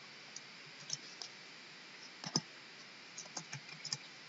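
Scattered clicks of a computer mouse and keyboard. There is a sharper click about two and a half seconds in, then a quick run of small clicks near the end.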